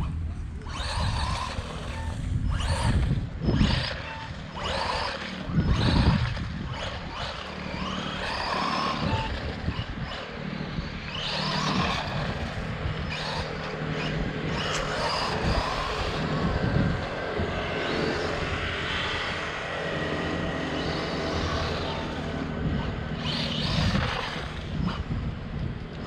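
HBX 16889 1/16-scale brushless RC monster truck driving on stone paving: its electric motor and drivetrain whir in repeated surges as the throttle is worked, with tyre noise on the stone. The loudest surges come about 3, 6, 12 and 24 seconds in.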